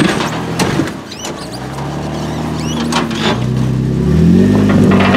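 Jeep Wrangler engine working at low speed as the Jeep crawls over rocks, revving up about four seconds in and holding the higher speed.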